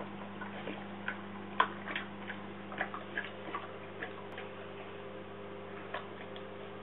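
Dog lapping water from a stainless steel bowl: irregular wet clicks and splashes, thick at first and sparse after about four and a half seconds, the loudest lap about a second and a half in. A steady low hum runs underneath.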